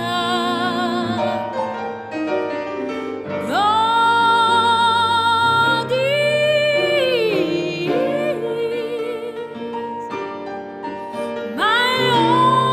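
Female soprano soloist singing long held notes with vibrato over grand piano accompaniment, in a classical, operatic style; a high sustained note swells in about three and a half seconds in and another near the end.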